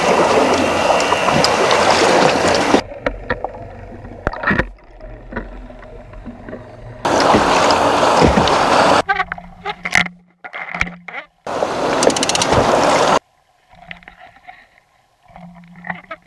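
Loud rushing of water and wind on the boat-side camera, cut off abruptly three times by muffled, much quieter underwater sound with a faint steady low hum and a few sharp clicks.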